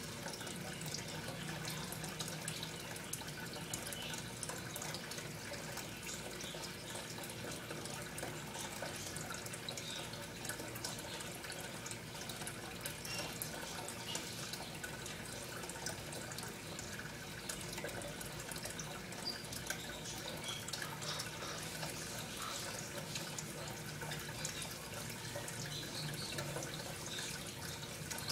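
Aquarium filter running: steady water trickling with many small bubbling pops over a low hum.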